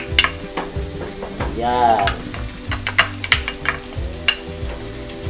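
Wooden spoon knocking and scraping tomato sauce out of a cup into a frying pan of diced baby marrow, then stirring it in, with a steady sizzle of frying underneath. The sharp knocks come repeatedly.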